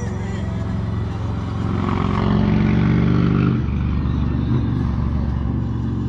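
Outboard boat motor running at idle, louder and higher from about a second and a half in, then dropping back to a lower, steady note at about three and a half seconds.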